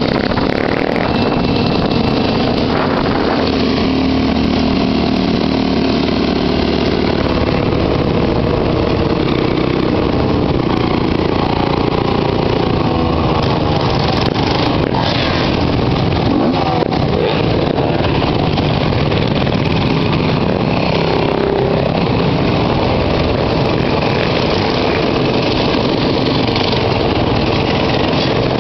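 A pack of enduro dirt bikes riding together, many engines running at once and revving up and down.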